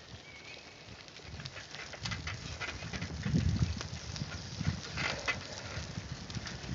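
A horse walking under a rider: irregular, dull hoof thuds that get louder about two seconds in, with creaks and clicks from the worn saddle and tack.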